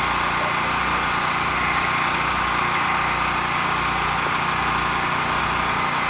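A small engine running steadily at an even speed, a continuous drone that does not change.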